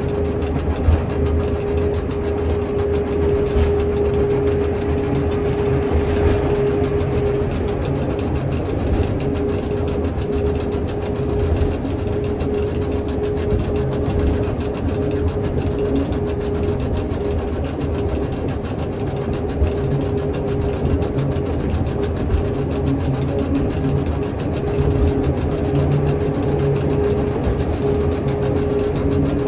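Pilatus Railway electric cogwheel railcar running at steady speed up the rack track, heard from inside the car: a constant low drone and rumble of motors, wheels and rack gearing, with a single steady whine held at one pitch throughout.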